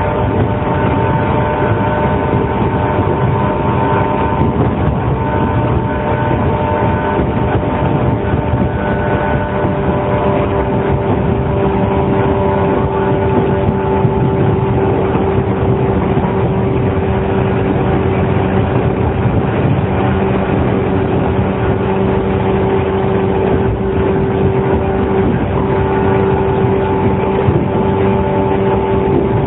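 JR 115-series electric train motor car running at a steady speed: a constant whine of its traction motors and gears over the rumble of the wheels on the rail, holding one pitch.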